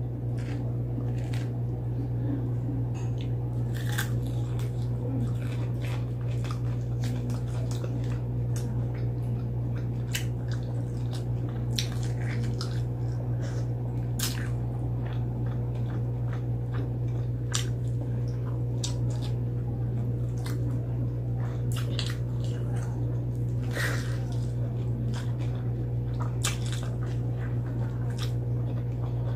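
Close-up eating sounds: crisp bites and crunching into breaded fried chicken, with chewing and wet mouth sounds in many short sharp clicks. A steady low hum runs underneath.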